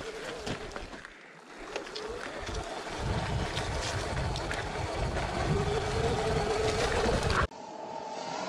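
Sur-Ron electric dirt bike's motor whining steadily as it rides a rough dirt trail, rising a little in pitch midway, with tyres clattering over sticks and stones. From about three seconds in, wind buffets the microphone heavily, and near the end the sound cuts abruptly to a quieter, more distant whine.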